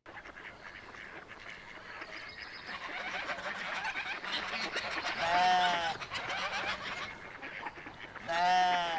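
Birds calling: a dense chatter of many small calls that grows louder, with two loud, drawn-out calls, one about five seconds in and one near the end.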